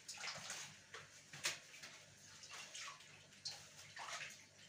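Water splashing and sloshing in a plastic bowl as thin yufka pastry sheets are dipped, crumpled and lifted out, in irregular wet bursts.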